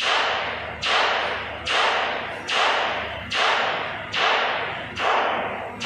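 A regular series of sharp blows, about seven, a little more than one a second, each starting suddenly and trailing off in a fading hiss, typical of repetitive mechanical hammering or impacts on an industrial site.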